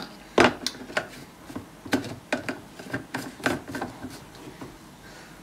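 Irregular plastic clicks and knocks as a personal blender's plastic cup is handled and its blade lid screwed on, the loudest knock about half a second in.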